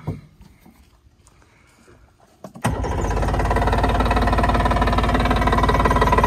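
Yamaha outboard motor starting about two and a half seconds in, catching almost at once, then running steadily.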